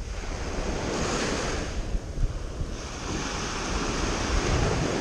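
Small waves breaking and washing up a sandy beach, the wash swelling about a second in and again from about three seconds, with wind buffeting the microphone.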